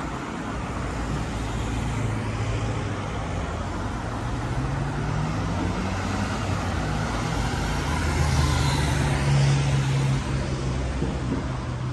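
City street traffic: cars driving past on asphalt, with steady engine hum and tyre noise. One vehicle passes louder and closer about eight to ten seconds in.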